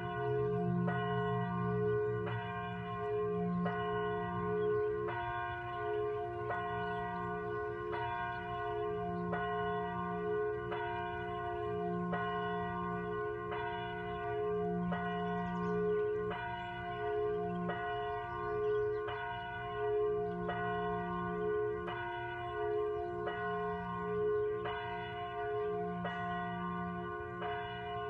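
A church bell tolling: struck at a steady, even pace, each stroke ringing on and overlapping the next.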